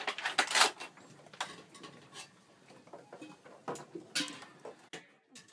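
Scattered light clicks and knocks, irregular, the loudest about half a second in and another near four seconds in, over a faint hiss.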